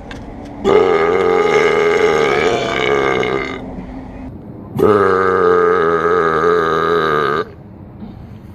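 Two long, loud belches, each lasting about three seconds with a wavering pitch and a short pause between them.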